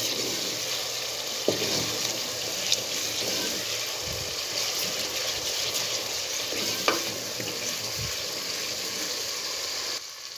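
Onion-tomato spice masala frying in oil in a metal pot, with a steady sizzle as a wooden spatula stirs it. A few sharp clicks of the spatula against the pot come through the sizzle.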